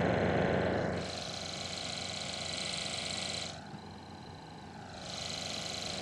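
Electrical noise from a heavily loaded computer coming out of an active studio monitor through an unbalanced RCA cable: a steady hum with a high whine and hiss, interference carried in on the cable. Its tone changes as the microphone moves across the speaker, brighter from about a second in and quieter for a moment past the middle.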